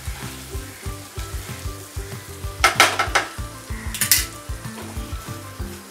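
A spatula stirring and scraping cooked basmati rice through a sizzling nonstick wok as it is mixed with the fried vegetables and sauces. A few sharper scrapes come at about two and a half seconds and again near four seconds.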